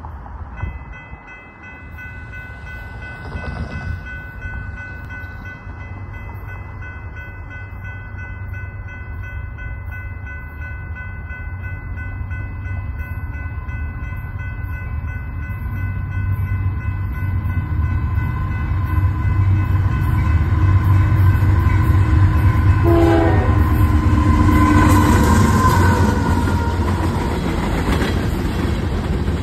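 Union Pacific freight train approaching at speed with its horn held in a long chord. The low rumble grows as the locomotives close in and pass, then covered hopper cars rumble by.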